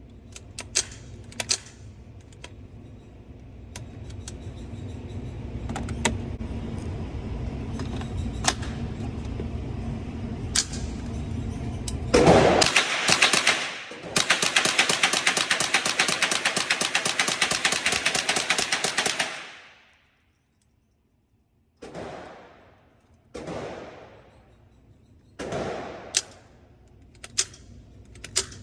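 Gunshots at a shooting range. Scattered sharp cracks over a steady low rumble give way to a loud stretch of rapid rattling, and after a short dropout come a few single shots a second or two apart.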